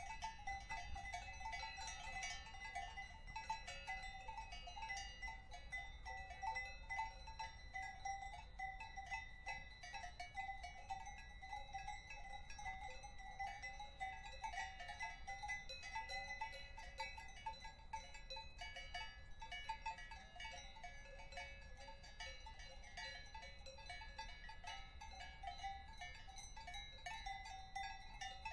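Several cowbells clanking irregularly and without pause, their ringing tones at different pitches overlapping.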